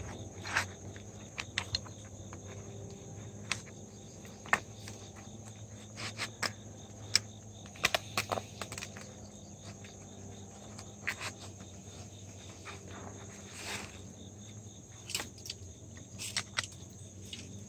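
Gloved hands working wire fencing through brush and dry leaves, making scattered rustles and sharp clicks, over a steady high-pitched insect chorus.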